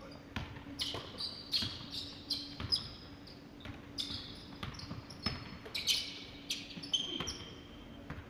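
Basketball bouncing on a hardwood gym floor with irregular knocks during play, mixed with short high squeaks of sneakers on the floor.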